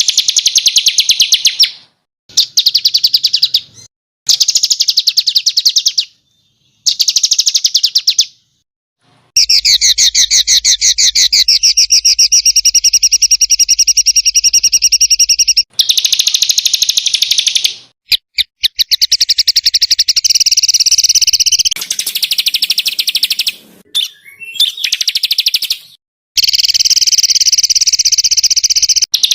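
Songbird singing loud, very rapid rattling trills ('tembakan', the fast burst phrases prized in Indonesian song-bird contests), in phrases lasting from about a second to six seconds, each cut off abruptly by a short silence. The longest burst comes about nine seconds in.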